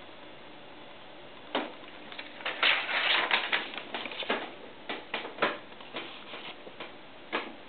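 A sheet of paper crackling and rustling as it is handled and lifted, in a run of irregular sharp crackles that is densest about a second into it, with a single sharp tap about a second and a half in.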